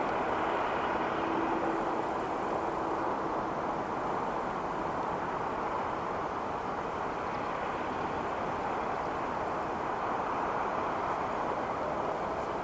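Boeing 777-300ER's twin GE90-115B turbofan engines running on the takeoff run, a steady, even jet noise.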